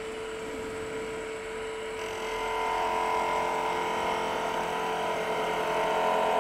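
Wood lathe running with a steady hum; about two seconds in, a skew chisel starts cutting the spinning spindle, adding a louder, higher cutting sound that builds.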